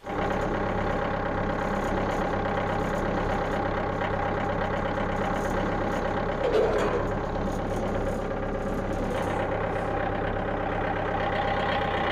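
Tractor engine running steadily at an even speed, with a brief swell about halfway through.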